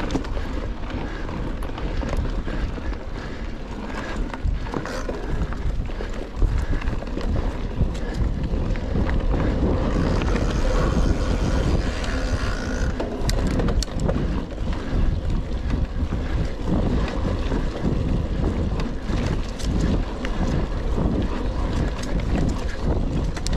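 Rockrider XC 900 mountain bike ridden on a forest trail, heard from a GoPro mounted on it: wind buffeting the microphone over a constant rumble of tyres on dirt, with scattered clicks and rattles from the bike.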